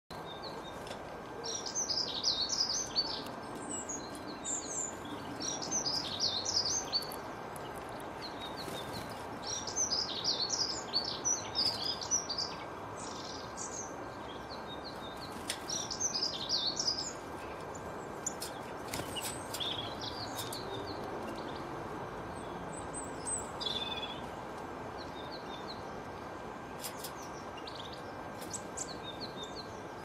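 Small songbird singing in phrases of quick, high twittering notes, each about two seconds long, coming every few seconds. The phrases thin out to a few scattered notes in the second half.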